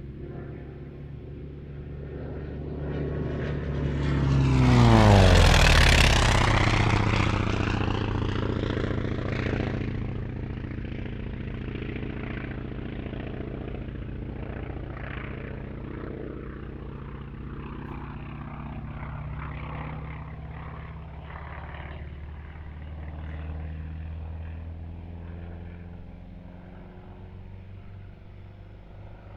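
North American T-28 Trojan's radial piston engine and propeller in a fast pass: the engine note builds and peaks about five seconds in, drops sharply in pitch as the aircraft goes by, then continues as a fading drone.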